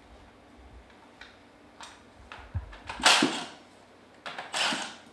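Cordless impact driver run in two short bursts, about three seconds in and again about a second and a half later, backing out head bolts on a Comet P40 diaphragm pump. Light clicks of tools and parts being handled come before.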